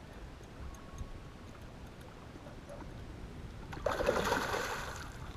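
A hooked northern pike thrashing at the surface of shallow water: one splash that starts about four seconds in and lasts about a second and a half, fading out.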